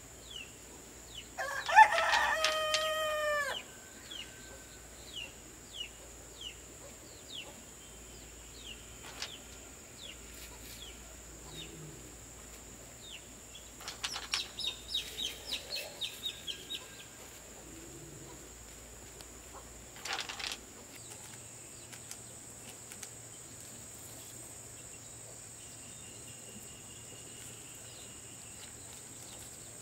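A rooster crows once, about two seconds in, the loudest sound. Small birds chirp in short, repeated, falling notes, with a quick run of calls near the middle, and there is one sharp knock about two-thirds of the way through.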